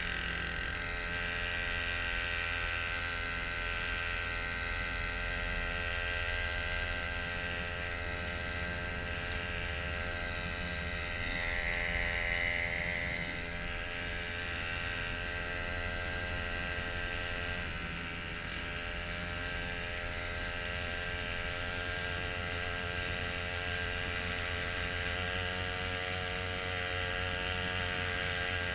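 Small motor mounted on the side of a kayak, running steadily with a constant drone. Its pitch shifts slightly a little past the middle, and a brief hiss swells up about midway.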